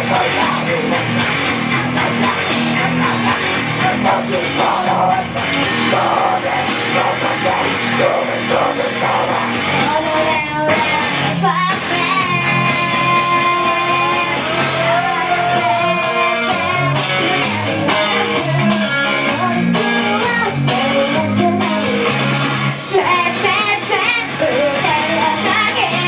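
Live rock song from a stage performance: electric guitar and drums with singing over them, the sung melody standing out more from about ten seconds in.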